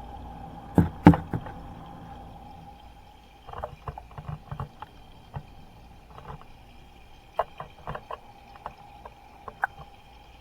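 Water sloshing and splashing in a giant octopus's aquarium tank, sharp irregular splashes, the loudest two about a second in and more in clusters later, which the video presents as the octopus breathing. A steady hum from the tank runs underneath.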